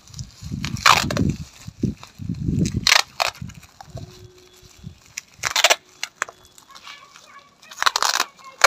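Clear packing tape being pulled off the roll in several short rasping rips, about two seconds apart, with plastic wrap crinkling and rustling under the hands as it is bound around a branch.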